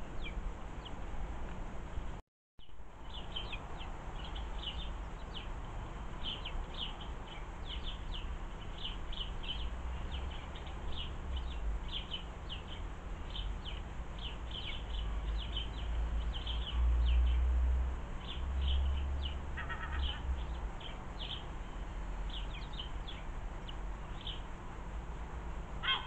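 Sparrows chirping over and over, short high chirps coming several to the second. A low rumble runs underneath and grows louder between about 15 and 20 seconds in, and the sound drops out briefly about two seconds in.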